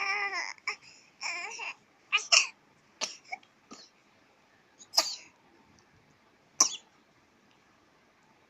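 A young child's short whining vocal sounds, then several short, sharp sneezes, the loudest about two, five and six and a half seconds in.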